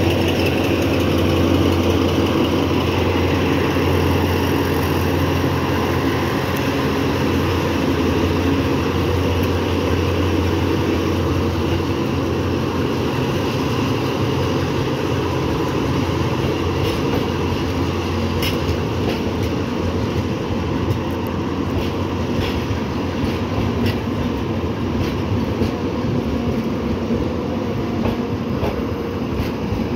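DE 24000-class diesel-electric locomotive hauling a passenger train slowly out of a station, its engine humming steadily. The coaches roll past with light wheel clicks over the rail joints in the second half.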